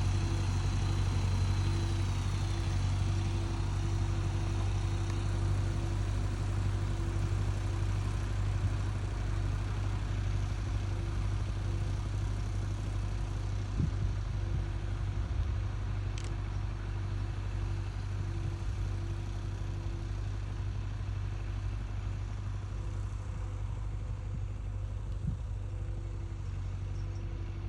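Motor vehicle engine running with a steady low hum, a few faint knocks and a gradual fade near the end.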